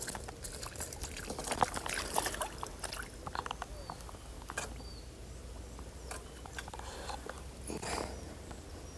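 Close handling noise: irregular crackling, tapping and rustling as a freshly caught small crucian carp is held and unhooked, busiest in the first few seconds and again near the end. A few faint, short bird chirps sound between the clicks.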